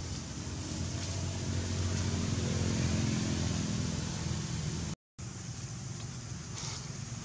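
Steady outdoor background noise with a low rumble that swells and fades over a few seconds, cutting out briefly about five seconds in.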